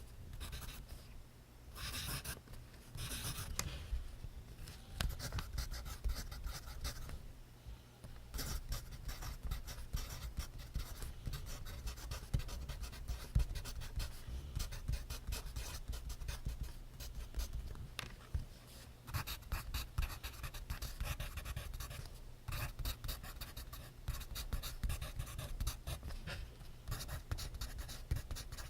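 Pencil writing on paper: quick runs of scratchy strokes with short pauses between them.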